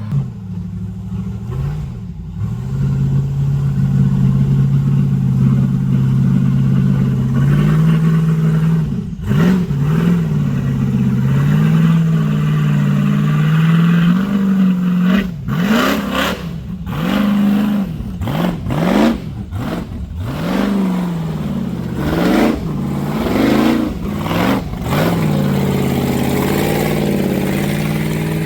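Off-road 4x4 truck engine running, first at a fairly steady pitch, then revved up and down in repeated short bursts through the second half.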